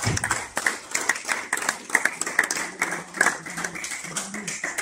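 A group of people clapping their hands, a scattered round of applause with many separate claps.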